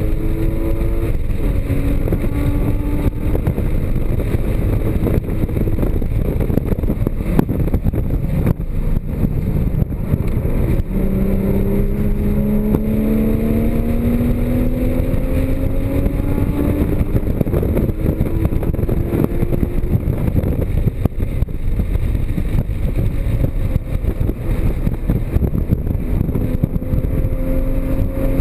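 Porsche Cayman GTS flat-six engine pulling hard at track speed under a constant heavy rumble of wind and road noise. The engine note climbs and steps down with gear changes in the first few seconds, then climbs steadily through a long pull from about 11 seconds in, and rises again near the end.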